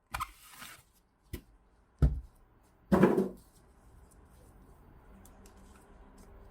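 A few separate knocks and handling sounds, as of objects being picked up and set down. The loudest are two heavier thumps about two and three seconds in, followed by a faint steady background.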